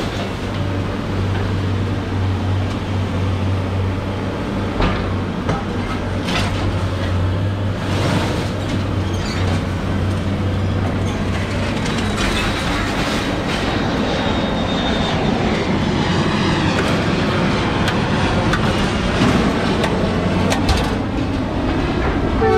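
Steady low engine rumble of heavy yard machinery, with scattered metal clanks and knocks.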